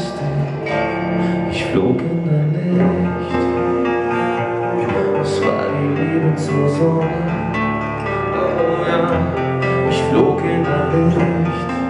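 Live acoustic band music: steel-string acoustic guitar and drums under a male lead voice singing close into the microphone.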